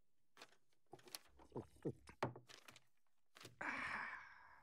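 A few faint clicks and small mouth sounds, then a breath close to a desk microphone near the end.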